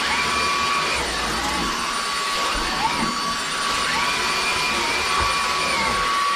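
Bosch Unlimited 7 cordless stick vacuum cleaner running steadily, a rushing motor noise with a high whine. Its pitch briefly rises and falls every second or two as the nozzle is worked over the floor.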